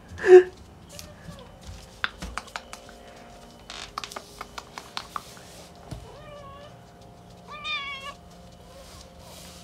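Domestic cat meowing repeatedly: a loud meow just after the start, then two more later on, with light ticking clicks in between. The cat is meowing a lot, which the owner puts down to loneliness or jealousy at a smell, without being sure which.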